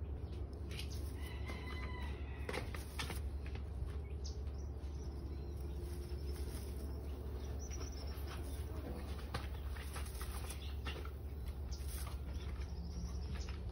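Serama bantam hen rustling and crackling the dry hay of her nest box as she picks up straws and tosses them behind her, nesting behaviour after laying an egg. There is a short chirping call about a second and a half in, over a steady low hum.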